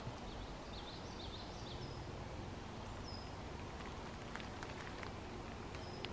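Woodland ambience: faint birds calling, short high notes that dip and level off, with a quick run of chirps about a second in, over a steady low background hum and a few faint ticks.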